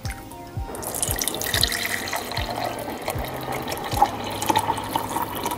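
Homemade sugar cookie syrup being poured into a glass mason jar: a steady splashing stream starts about a second in and keeps running as the jar fills.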